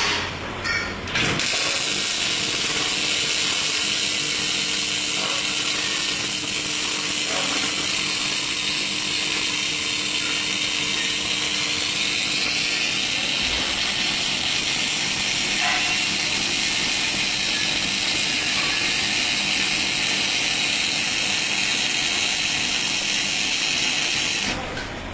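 MIG welding arc from a Daihen Dyna Auto XS350 welder burning in one long continuous weld. It starts about a second in and stops shortly before the end.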